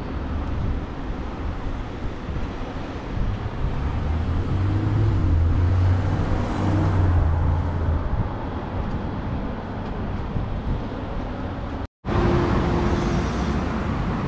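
City street traffic noise: a low engine rumble swells about four to eight seconds in over steady road noise. The sound cuts out for a moment near the end.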